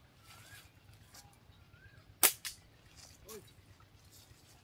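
A slingshot shot: one sharp snap of the rubber bands releasing about two seconds in, followed a moment later by a fainter crack.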